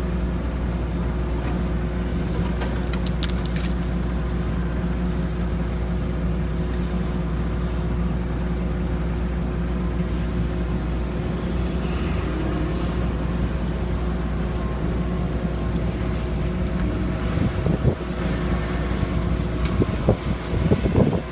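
Diesel engine of a John Deere skidder running steadily at an even speed, with a few irregular knocks and rattles near the end.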